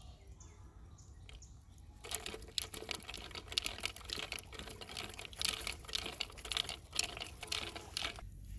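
Homemade wooden fishing reel spinning as line pulls off it, a fast rattling clatter of clicks that starts about two seconds in and stops abruptly just before the end.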